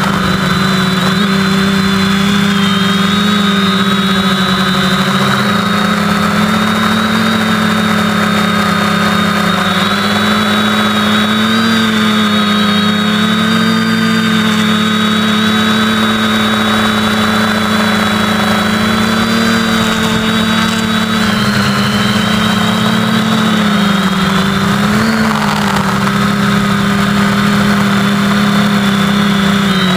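Brushless motors and propellers of an SK450 dead-cat quadcopter in flight, heard close up from its onboard camera: a loud, steady multi-tone hum and whine whose pitch wavers slightly up and down as the throttle changes.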